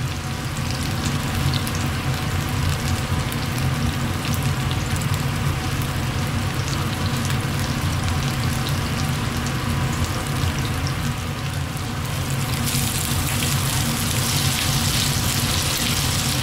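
Potato pancakes (draniki) frying in shallow oil in a large pan: a steady sizzle with small crackling pops over a steady low hum. The sizzle grows louder near the end as the pancakes are being turned over.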